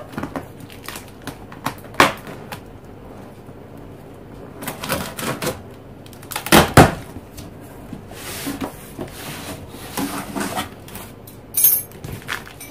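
A cardboard box being opened by hand: scattered taps, scrapes and knocks on the cardboard. The loudest is a pair of knocks about halfway, and there is a short high rasp near the end.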